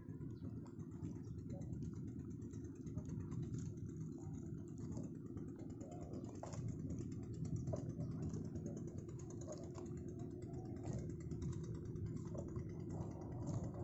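Steady low rumble with scattered light clicks.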